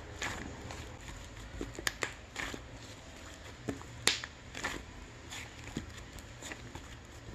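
Hands squishing and pressing shaving foam, giving irregular wet clicks and crackles.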